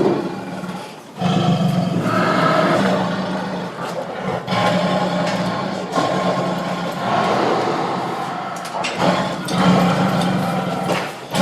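Tiger growling and roaring in long, low calls, broken by brief pauses about one, four and nine seconds in.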